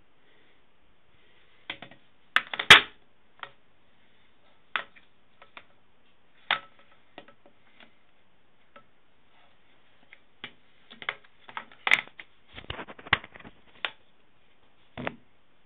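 Irregular hard-plastic clicks and knocks from handling a Bosch condenser tumble dryer's lint filter and the filter slot in its door, with the loudest clatter about two and a half seconds in and a quick run of clicks near the end.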